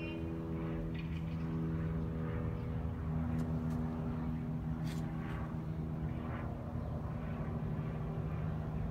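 An engine or motor running steadily with a low, even hum, shifting slightly in pitch now and then. A few faint clicks fall around the middle.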